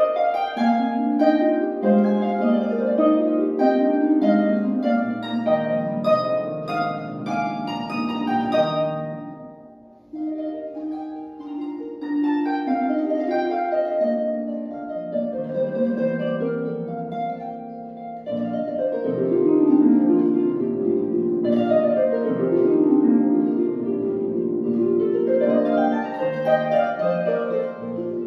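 Concert pedal harp playing a classical-era sonata: quick runs of plucked notes, with a brief drop in level about ten seconds in. Sweeping rising and falling scale passages follow in the second half.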